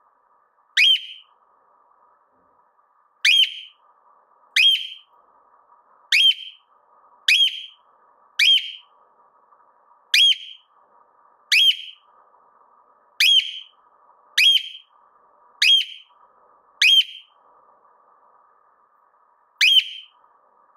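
Cockatiel repeating a short, sharp upswept whistled call about thirteen times, at uneven gaps of one to two seconds.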